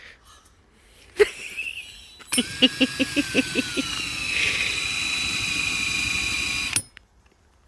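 Power drill spinning a hole saw into a plastic bumper cover. After a click, the motor starts with a rapid chatter as the saw teeth catch, settles into a steady whine that drops in pitch as it bites under load, and stops suddenly near the end.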